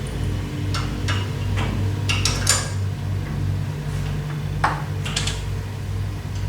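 Light metallic clicks and taps of hand tools and door hardware being handled, scattered irregularly with a small cluster about two seconds in and another near five seconds, over a steady low hum.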